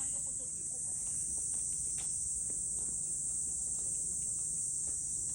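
Steady, high-pitched shrilling of insects, unbroken and even in level.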